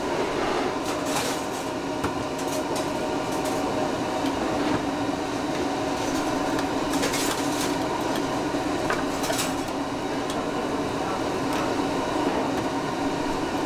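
Metal ladle and spoons clinking against ceramic bowls and a steel pot rim, several separate clinks over a steady hum.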